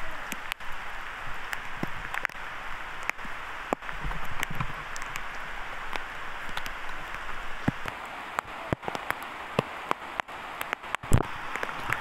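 Steady rain, an even hiss scattered with many sharp drop ticks close by, and one louder knock near the end.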